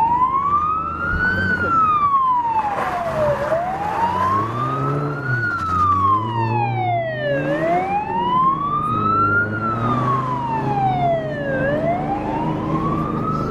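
Rally course car's wailing siren, sweeping slowly up to a high tone and back down about every four seconds. The car's engine runs under it, loudest around the middle as it passes and drives away.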